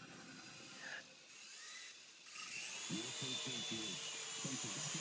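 Small electric motor of a toy RC helicopter whirring, setting in about halfway and louder toward the end.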